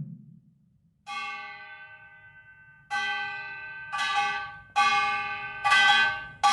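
A bell-like metal percussion instrument striking the same ringing note five times, the first about a second in and then roughly once a second, each stroke ringing on until the next. A drum stroke is dying away at the very start.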